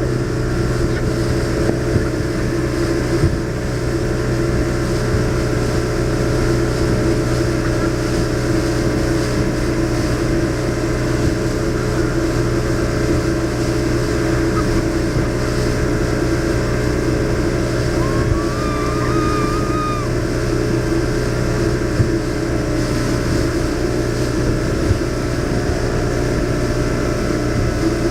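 Motorboat engine running steadily at a constant pitch, with wind noise on the microphone. About two-thirds of the way through, a brief high wavering call rises over it.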